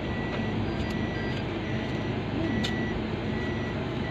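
Car idling, heard from inside the cabin, with a short high electronic beep repeating about once a second, typical of a dashboard warning chime or reversing beeper.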